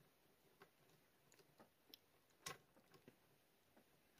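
Faint, scattered plastic clicks and taps from handling a posable plastic action figure and its small plastic weight-plate accessories, the clearest about two and a half seconds in.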